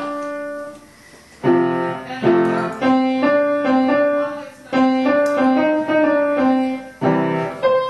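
Background piano music: a melody of separate notes, with a short pause about a second in.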